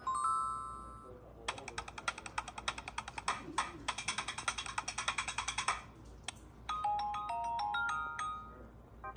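LG K31 phone ringtones played one after another: a pitched chime fading out, then a fast string of short repeated notes lasting about four seconds, then a short melody of stepping notes near the end.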